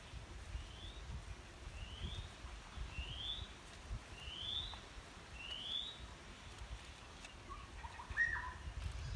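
A bird calling: five short, rising whistled notes about a second apart, then a different, lower call near the end, over a low rustling background.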